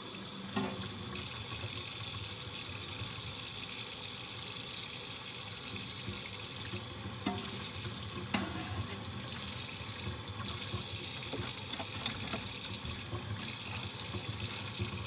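Kitchen tap running steadily into a sink while dishes are washed by hand, with a few short clinks of dishes.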